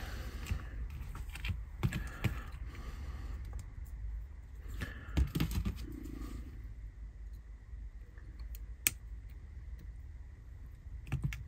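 Small scattered clicks and taps of pliers and a plastic model-train motor bogie being handled while circlips are fitted onto its shafts, with one sharp click about nine seconds in.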